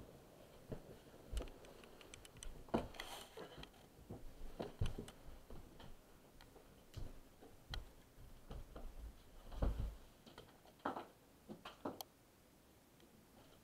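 Scattered rustling, knocks and light clicks of a person throwing off a blanket, moving across the floor and handling a small plastic nightlight at a wall outlet, with a few dull thumps. A sharp click comes about twelve seconds in, as the nightlight is pushed into the outlet.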